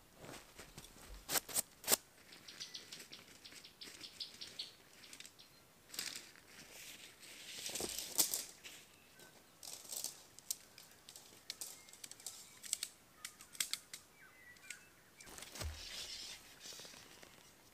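A small tent being pitched: nylon tent fabric rustling and being shaken out and handled, with sharp clicks and taps from the tent poles. There are a few loud clicks about a second in and a quick run of light ticks shortly after.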